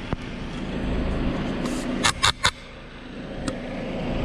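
Bulk feed delivery truck's engine idling with a steady low hum, with three sharp knocks in quick succession about two seconds in and a single knock a second later.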